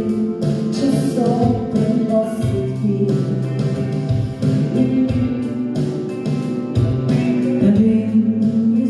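A pop-style song played over a backing track with a steady beat, bass and guitar, sung by a vocal trio.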